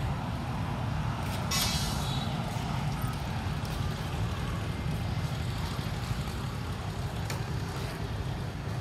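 Steady outdoor background rumble, with a short hiss about one and a half seconds in.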